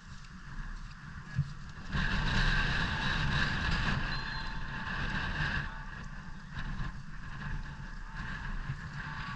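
Wind rushing over the microphone, growing louder and gustier about two seconds in and easing off a few seconds later.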